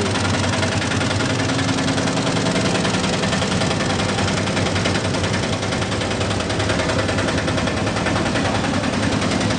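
Bajaj RE Compact BS6 diesel auto rickshaw's single-cylinder engine idling steadily with a rapid, even beat.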